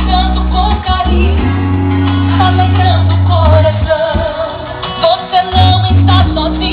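A song with a singing voice and guitar played loud through a homemade sound rig of amplifier modules powered by PC power supplies, horn speakers and a subwoofer. The deep bass drops out briefly twice.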